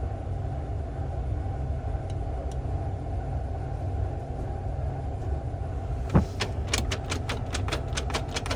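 Steady low drone of bowling pinsetter machinery. About six seconds in, a sharp metal knock, then a fast, even run of metal clicks, about six a second, from work on the pinsetter's scissor assembly.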